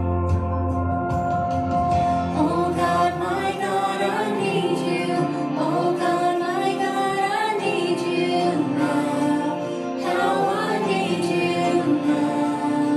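Two women singing a slow worship song into handheld microphones over sustained backing chords; a deep bass note drops out about three and a half seconds in, as the voices come in.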